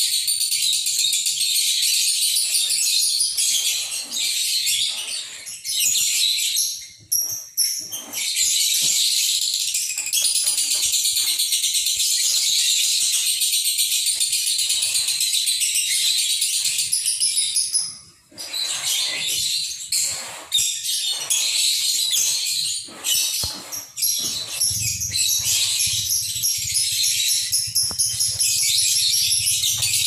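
Lovebird singing a long, rapid, jingling chatter almost without a break, stopping briefly about 7 and 18 seconds in.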